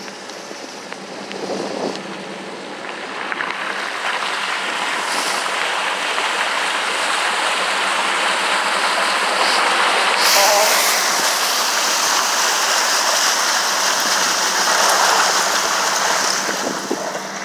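A vehicle's tyres ploughing through deep floodwater on a road: a steady rush of splashing spray that builds over the first few seconds and turns hissier about ten seconds in.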